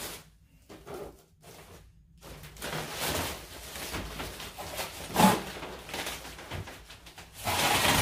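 Rustling handling noises with a single short knock about five seconds in.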